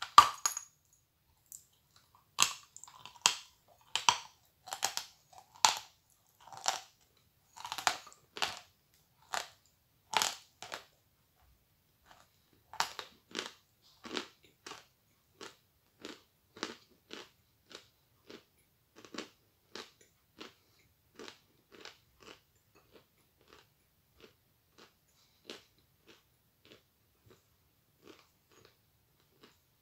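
A bite into a lump of edible chalk, then crunchy chewing of a full mouthful close to the microphone. It starts with strong crunches about one a second, then goes on as quicker, fainter chewing, about two a second, through the second half.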